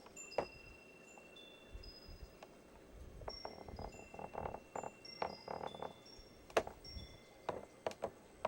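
Wind chimes ringing: scattered clear high notes at several different pitches, with soft knocks and clicks, most of them in the middle.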